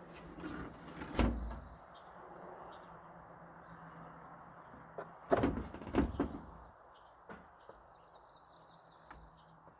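Several knocks or thumps: one about a second in, then three close together around five to six seconds. Birds chirp faintly throughout.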